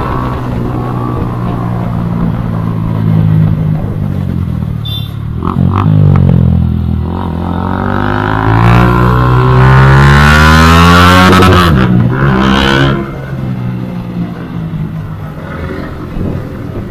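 Yamaha R15 V2's single-cylinder 150 cc engine heard from the rider's seat while riding in traffic. About six seconds in it revs up with a steadily rising pitch to its loudest point, breaks off near twelve seconds, then settles to a lower, quieter run.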